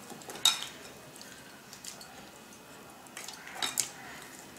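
Hands turning and pressing a ball of oiled maida dough in a glass bowl: soft wet squelches, with a sharp click or slap about half a second in and a couple more a little before the end.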